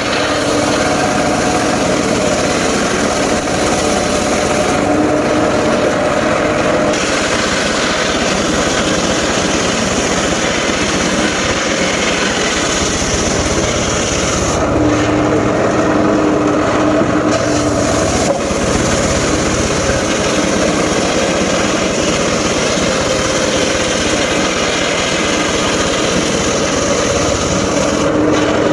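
Engine-driven circular saw of a portable sawmill running steadily as it saws timber, its hum changing pitch in places as the load on the blade changes.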